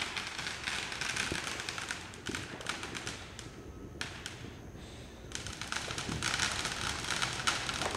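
Distant fireworks crackling and popping, with a quieter lull in the middle before the crackling picks up again.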